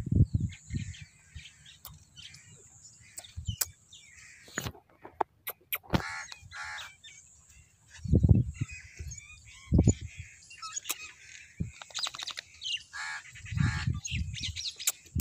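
Birds calling outdoors, among them crow-like caws, with scattered clicks and a few low dull thumps.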